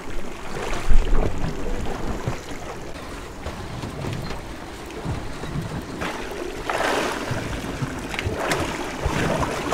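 Wind buffeting the microphone over the sea and the sloshing of water around a drifting boat, with a sharp knock about a second in and a couple of rushing swells near the end.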